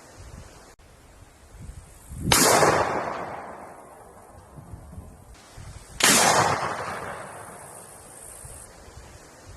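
Two single gunshots about four seconds apart. Each is a sharp crack followed by an echoing tail that dies away over about a second and a half.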